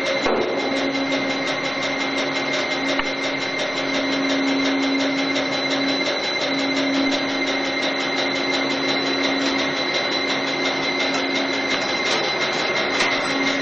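Vecoplan VAZ 2000 industrial waste shredder running with a steady mechanical hum and a rapid, even ticking. Its feed ram is pushing wood and a piece of tramp metal toward the rotor.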